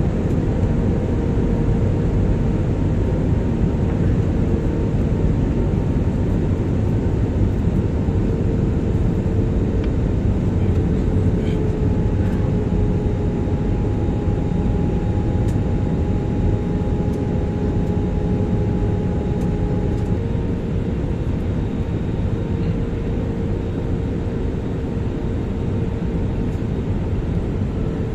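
Airbus A320 cabin noise on descent: a steady rush of airflow and engine hum. Faint steady tones ride on it and shift slightly in pitch a couple of times.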